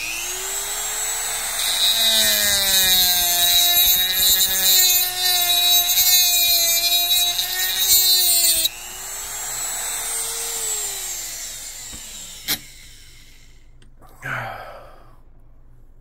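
A high-speed rotary tool cutting the slit for the drive dog into the end of a metal RC boat prop shaft. There is a steady high whine, with harsh grinding from about two seconds in to about nine seconds. The tool then runs free, its pitch rising slightly before it winds down. A sharp click follows.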